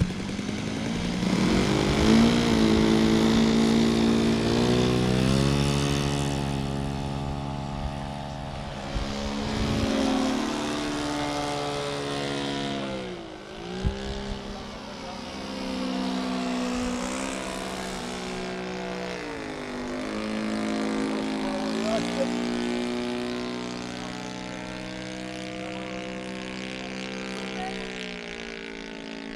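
RC model airplane's engine and propeller revving up to full throttle for takeoff, then running steadily in flight. Its pitch dips sharply and comes back twice, about halfway through and again a few seconds later, and it grows fainter near the end as the plane flies away.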